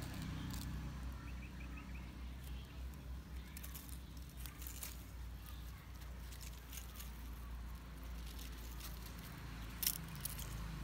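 Outdoor ambience with a steady low rumble, scattered light rustling and clicks of a kitten pawing through dry leaves and plants, and a quick run of four high bird chirps about a second in. A single sharp click stands out near the end.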